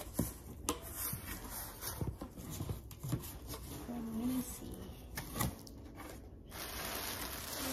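Cardboard shipping box being opened by hand: its flaps are pulled up and folded back with scattered scrapes and light knocks of cardboard. Near the end a steady crinkling rustle starts as the plastic wrapping inside is handled.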